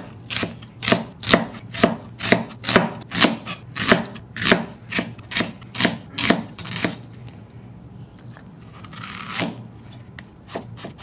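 Chef's knife slicing an onion on a plastic cutting board: steady sharp strikes about two a second, stopping after about seven seconds. A brief scrape follows, and near the end lighter cuts begin into a zucchini.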